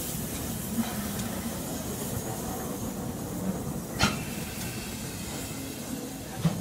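LNER B12/3 4-6-0 steam locomotive moving slowly away: a steady low rumble with a light hiss of steam and three sharp clicks, the loudest about four seconds in.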